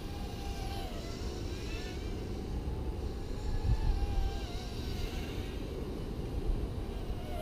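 Micro FPV race quadcopter's motors whining in flight, their pitch gliding up and down as the throttle changes, over a steady low rumble.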